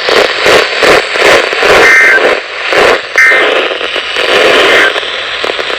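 Weak, static-filled radio reception of an Emergency Alert System broadcast: three short two-tone data bursts about a second and a half apart through heavy hiss and crackle, the EAS end-of-message code that closes the alert.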